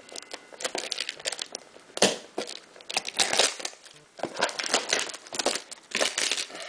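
Clear plastic shrink-wrap on a cardboard trading-card blaster box crinkling and crackling as the box is handled and the wrap is pulled open, in dense irregular runs of crackles.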